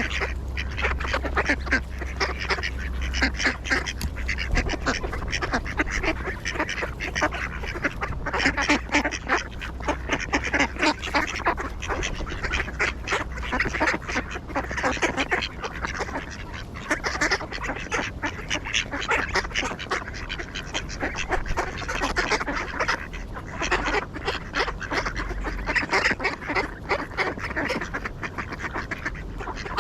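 A flock of ducks calling and quacking continuously, many short calls overlapping.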